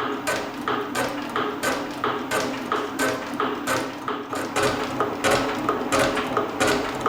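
Elliott 10M metal shaper running at speed, its ram stroking back and forth with a regular metallic clack, two to three a second, while taking cuts in a cast iron brake caliper carrier.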